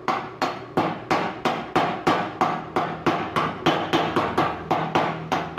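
Homemade welder's chipping hammer striking a fresh stick-weld bead on a steel plate, knocking off the slag in quick, steady taps, about three a second.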